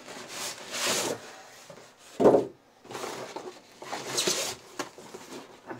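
A cardboard box being opened and handled: flaps scraping and rustling in a few short bursts, with one dull thump about two seconds in. Near the end a fabric carry bag rubs against the cardboard as it is pulled from the box.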